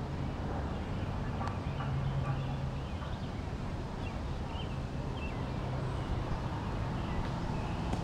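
Outdoor ambience: a steady low hum with scattered faint bird chirps and an occasional faint click.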